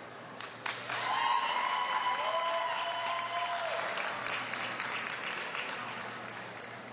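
Spectators applauding and cheering. The applause breaks out suddenly about half a second in and fades gradually toward the end, with a few held cheers rising over it early on.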